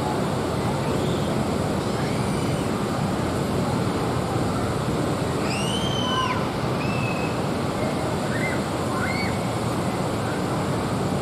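Steady harbourside wind and water noise on an outdoor microphone, with a few short, high, arching chirps near the middle.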